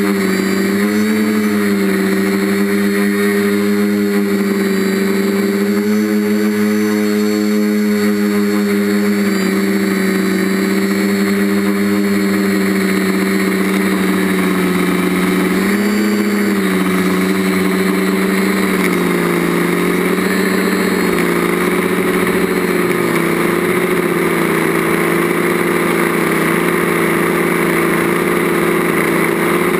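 Quadcopter's stock DJI brushless motors and propellers buzzing at a steady pitch, heard from the camera on board with a rush of prop wash and wind. The pitch rises briefly about a second in and again about halfway through as the throttle changes.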